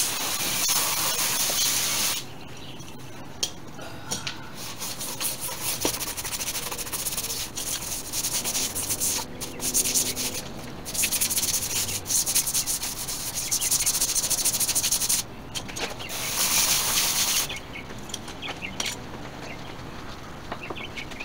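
A scrub brush scrubbing the rubber sidewall and whitewall of a wet tire by hand, in quick rubbing strokes. Water sprays from a garden hose at the start and again for about a second and a half near the end.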